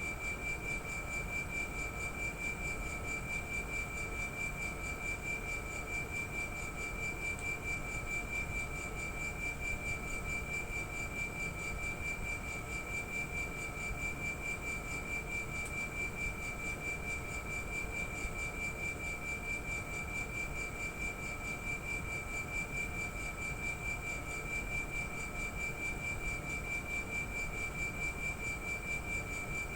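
Air conditioner outdoor unit's compressor running with a steady high-pitched whine over a low rumble: an abnormal compressor noise.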